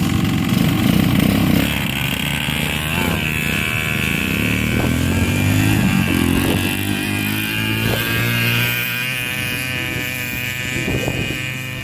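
Small engines of a youth dirt bike and a mini quad running and revving, their pitch rising and falling as they pull away across sand.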